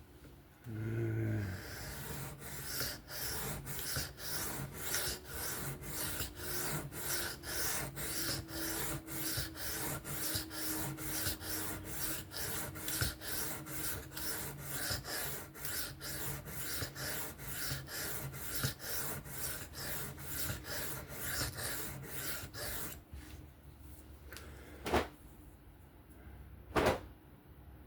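A 3V steel knife blade stroked back and forth on a sharpening stone in freehand sharpening, a steady run of scraping strokes about two a second. The strokes stop about 23 seconds in, followed by two short clicks near the end.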